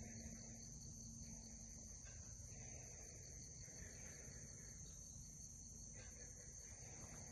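Faint night-insect chorus of crickets, a steady high trill with a fast pulsing beneath it. Fainter wavering, rising-and-falling sounds of unknown origin come and go under the chorus.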